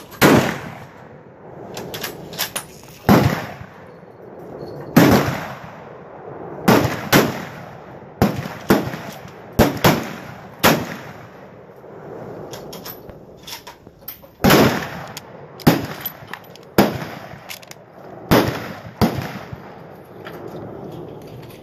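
Rifle fire along a range firing line: about twenty sharp, irregularly spaced shots, some loud and close, others weaker, with lighter clicks in between. The close shots include the shooter's own .303 Lee-Enfield SMLE No.1 Mk III* bolt-action rifle, and neighbouring competitors fire during the same timed string.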